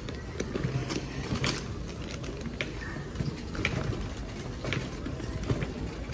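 Cycle rickshaw rolling along a lane, its frame and chain rattling with a sharp click or knock about once a second.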